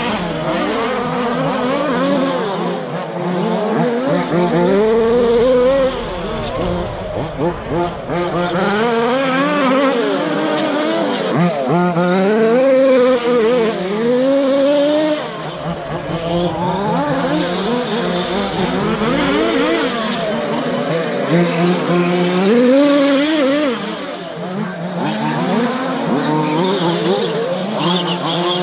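Several radio-controlled short course trucks racing, their motors whining up and down in pitch as they speed up and slow down through the corners.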